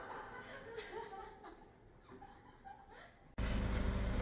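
Faint voices and soft laughter, then an abrupt jump about three seconds in to a much louder, steady low outdoor rumble.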